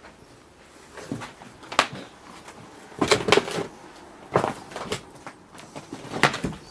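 Scattered knocks and bumps on wood, about half a dozen, with a short cluster of scraping and knocking about three seconds in.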